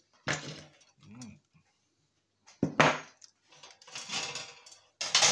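Hard plastic and metal parts of an electronic device being handled and pulled apart during scrapping: a few separate clinks and rattles, with a sharp clack about three seconds in.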